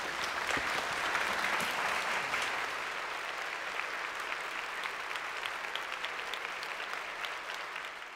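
Audience applauding, a steady clatter of many hands clapping that slowly dies down near the end.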